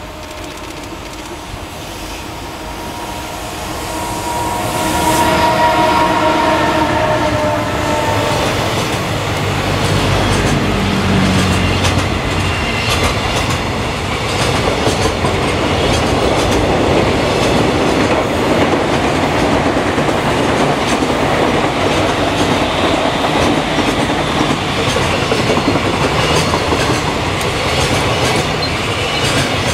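JR Freight EF210 electric locomotive passing close by, with a few seconds of steady pitched sound as it goes past about five seconds in. It is followed by a long string of container wagons rumbling and clacking over the rail joints.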